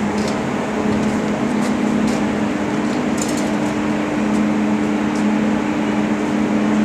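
Steady mechanical hum with a rushing of air, as of large fans running. Two low tones hold steady over the noise, with a few faint ticks.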